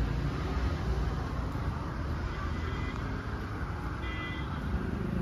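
Lorry engine idling: a steady low rumble. A brief faint high-pitched tone comes about four seconds in.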